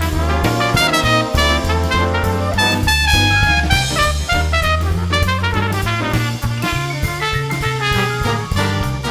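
Background music with horns playing a melody over a steady bass beat.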